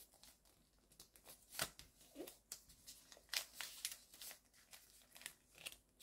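Square of origami paper being folded and creased by hand: soft, irregular rustles and crinkles, with a few sharper crackles as the folds are pressed.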